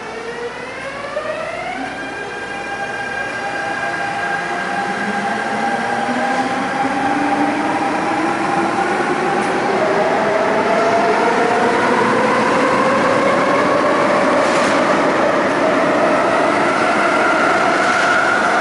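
MTR Tung Chung line A-Train electric multiple unit pulling out and accelerating: its traction motors whine in several tones that climb steeply for the first two seconds, then keep rising slowly. The whine comes over wheel and rail noise that grows louder as the cars run past close by.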